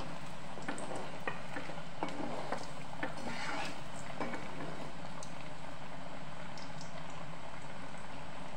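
Chickpea cutlets deep-frying in hot oil in a cast-iron kadhai: a steady sizzle and bubbling, with scattered sharp clicks in the first half.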